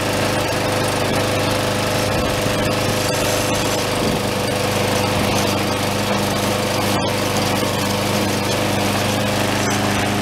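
Troy-Bilt XP lawn mower's 7.75 HP Briggs & Stratton OHV engine running steadily with the blade spinning, its tone changing slightly about four seconds in.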